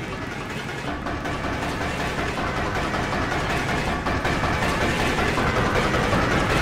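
A dense, jumbled wash of noise from many video soundtracks layered and playing at once, with no single sound standing out, growing steadily louder.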